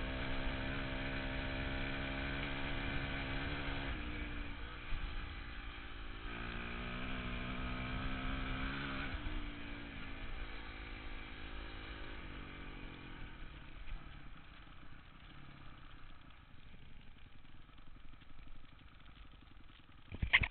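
Dirt bike engine running under way, its note holding steady, dropping, then climbing and falling again as the throttle is worked. Over the last third the engine fades away to faint noise, with a few sharp knocks at the very end.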